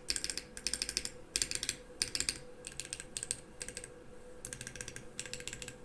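Typing on a custom GAS67 mechanical keyboard with lubed Akko Cream Yellow V3 linear switches and Akko shine-through keycaps: quick runs of keystrokes broken by short pauses.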